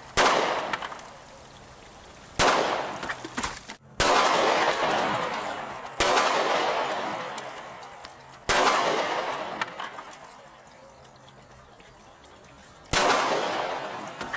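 Six 9mm pistol shots from a Glock 19 firing Federal HST 124-grain +P rounds, irregularly spaced one to four seconds apart, each dying away over a second or two.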